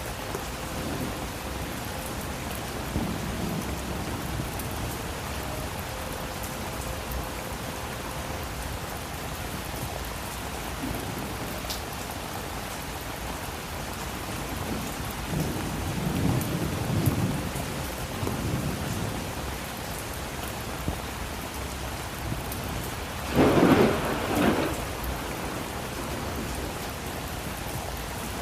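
Steady rain falling during a thunderstorm, with thunder rumbling low about halfway through and a louder, sharper thunderclap near the end.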